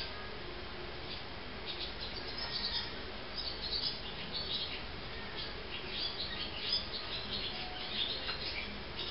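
Barn swallow chicks twittering: clusters of short, high chirps that start about a second and a half in and keep coming in bursts.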